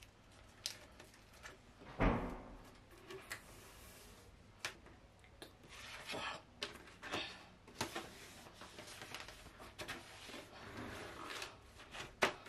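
A plastic smoothing card scraping and rubbing over contact paper on a desk top, with scattered clicks and light knocks as the paper and card are handled. One heavier thump comes about two seconds in.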